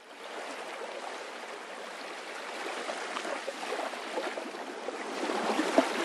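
Moving water: a steady, gentle trickling babble with many small irregular splashes.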